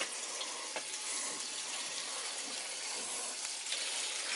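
Water rushing steadily through a hose as a hydronic heating system is flushed with fresh water to clear out the old antifreeze and sludge.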